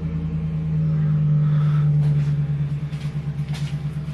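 Power tool motor driving a 14 mm socket to loosen the nuts on a garage door opener rail: a steady, loud hum with a fast pulsing in its level.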